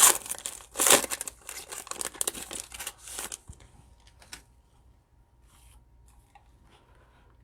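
Foil trading-card pack being torn open, its wrapper crinkling sharply for about three and a half seconds. The crinkling then dies away to faint rustles.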